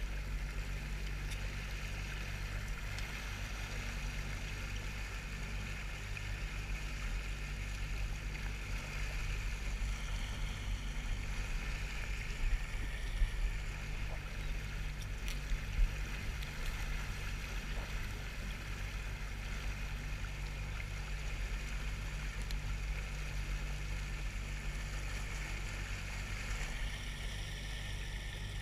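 Boat's outboard motor running steadily with a low hum, over the wash of water along the hull, with a few sharp knocks near the middle.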